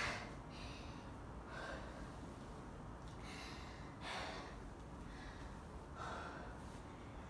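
A person breathing audibly in short, noisy breaths and sniffs, about five of them a second or two apart, the first one the loudest.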